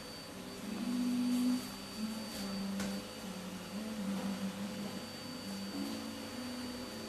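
A quiet wordless tune of held, nearly pure notes that step up and down in pitch, over a faint steady hum. One sharp click about three seconds in.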